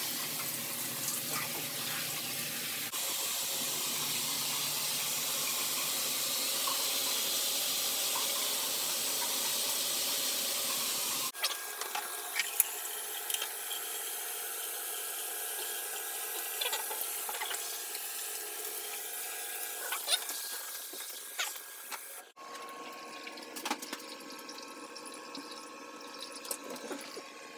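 A handheld shower head sprays water in a steady rush that cuts off suddenly about eleven seconds in. After that come quieter drips and small wet clicks and splashes.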